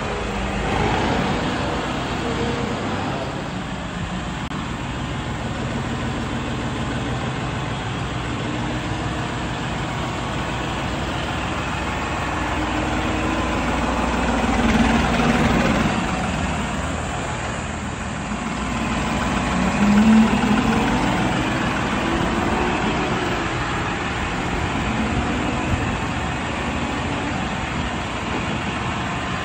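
New Holland tractor's common-rail diesel engine running at low speed, picking up briefly in pitch a couple of times as it is driven.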